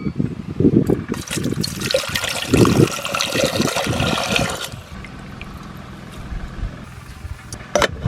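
Water pouring and splashing for about four seconds, then stopping, leaving a quieter steady low hum; a sharp knock near the end.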